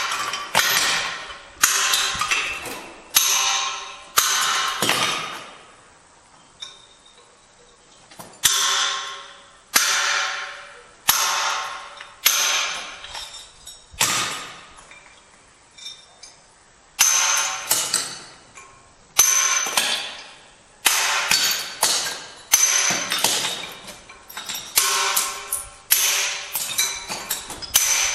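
Hand carving pink Portuguese marble with a hammer and steel chisel: sharp, ringing metal strikes about once a second, each tone fading over most of a second. The strikes stop twice for a few seconds.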